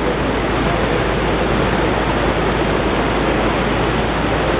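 Mountain river in flash flood rushing loudly and steadily, a continuous roar of floodwater.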